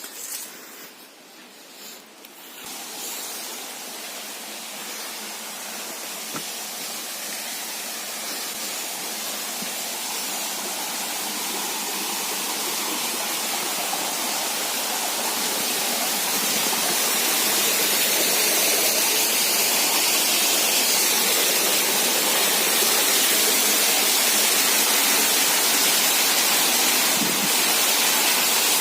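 Rushing water of a waterfall, a steady even rush that grows louder over the first fifteen seconds or so and then holds level.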